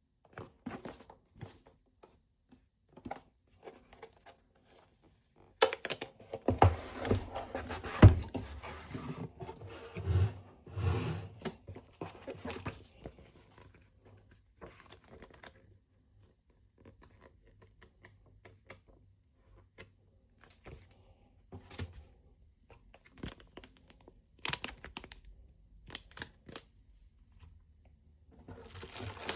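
Packaging being handled and unwrapped by hand: irregular crinkling and tearing in bursts, busiest from about six to thirteen seconds in and again near the end.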